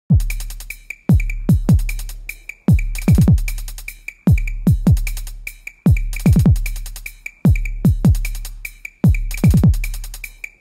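Background electronic beat: deep drum-machine bass hits that fall in pitch and ring out, over fast ticking hi-hats.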